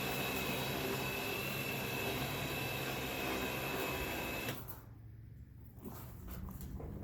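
Electric winch motor running steadily with a high whine, pulling the ATV onto the trailer, then cutting off abruptly about four and a half seconds in.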